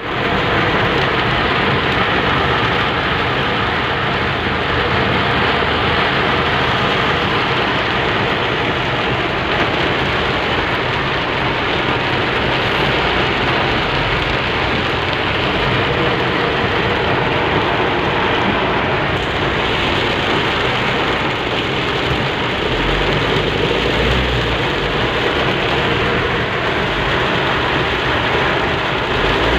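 Heavy rain falling on a car's roof and windscreen, heard from inside the cabin as a steady hiss, with the car's low engine and road rumble underneath.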